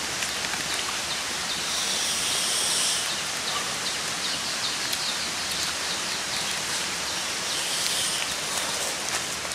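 Outdoor forest ambience: a steady hiss with a high buzzing call about two seconds in and again near the end, and a quick run of high chirps in between.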